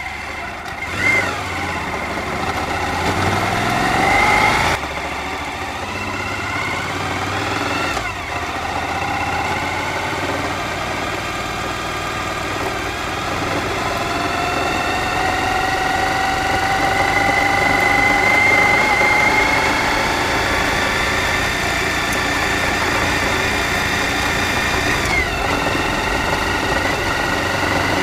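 Suzuki V-Strom DL1000's V-twin engine pulling on the move. Its pitch rises steadily as the bike gathers speed and drops sharply at each gear change, a few times over.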